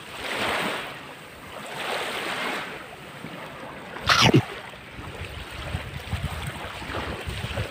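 Small waves washing on the shore in gentle swells, with wind buffeting the microphone. A short, sharp loud noise about four seconds in.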